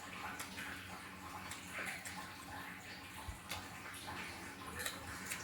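Close-up eating sounds: wet chewing and smacking with scattered short mouth clicks.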